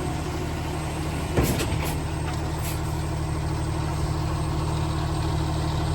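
Diesel engine of a tri-axle dump truck running steadily, with one short knock about a second and a half in.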